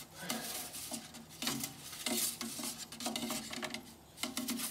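Metal pizza peel scraping and knocking against the stone deck of an Ooni Koda 16 pizza oven in several short, irregular strokes as a baking pizza is slid around and turned.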